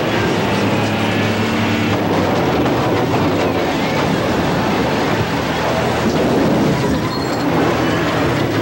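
Loud, steady vehicle noise, a continuous rumble with a low hum and no distinct crash or explosion impact.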